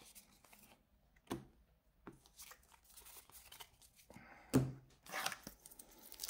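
Pokémon trading cards being handled: faint rustling and sliding of cards with a few short taps, the clearest about a second in and again near the end.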